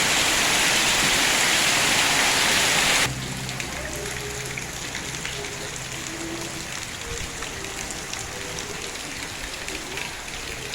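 Heavy rain pouring down, a loud steady hiss that drops suddenly about three seconds in to a softer, quieter sound of rain.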